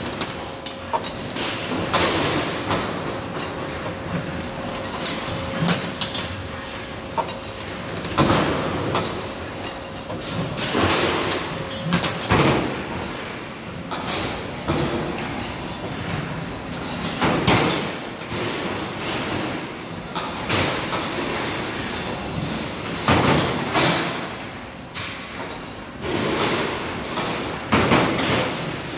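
AIM AFM-3D16T 3-D CNC wire bending machine running, with irregular metallic clanks every two to three seconds over a steady hum.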